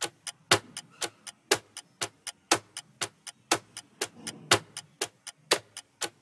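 Clock-ticking sound effect of a quiz countdown timer: sharp ticks about four times a second, every fourth tick louder, marking the seconds as the timer runs down.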